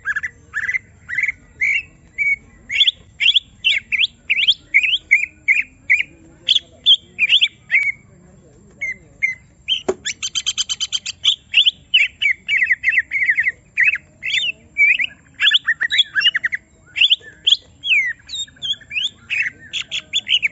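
Cucak ijo (green leafbird) singing in agitated, rapid bursts of sharp whistled and chattering notes, with a short buzzy rattling trill about ten seconds in.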